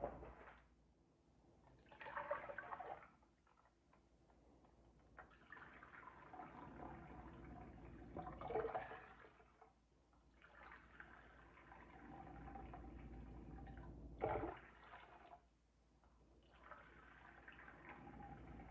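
Liquid poured from a plastic measuring cup into a bowl and a saucepan, splashing, in several pours of a few seconds each with short breaks between.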